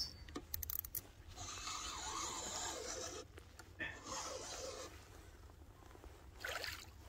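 Spinning reel being cranked in two spells of soft whirring, each a second or so long, while a flounder is reeled in; a few light clicks near the start and a short burst of noise near the end.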